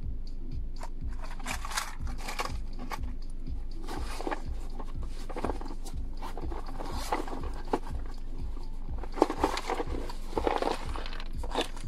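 Background music with a steady low beat about twice a second, over plastic tackle boxes being handled: scraping and clattering of the cases, busiest near the end.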